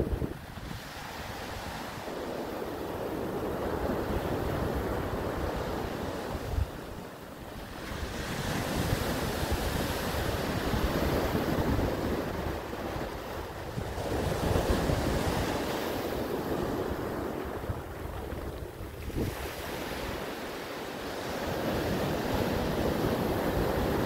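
Ocean surf breaking and washing in, swelling and easing in slow surges every several seconds, with wind buffeting the microphone.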